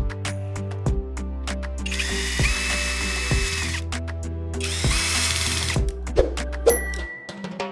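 A power tool's electric motor whirring in two short bursts, each spinning up, holding and winding down, over background music with a steady beat.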